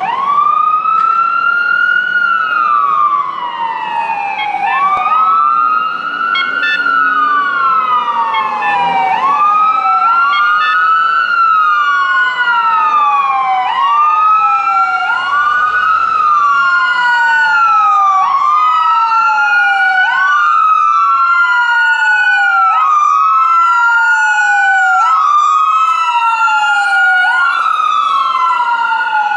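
Fire engine wail siren, each cycle rising quickly and falling slowly, about every three seconds. From about five seconds in a second wail runs alongside, out of step with the first, as the engine approaches and passes close by near the end.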